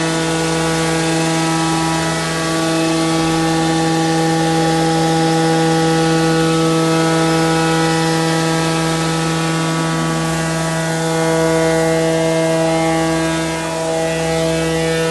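CNC router running a nesting job in wood, a steady machine hum with a whine that holds its pitch throughout.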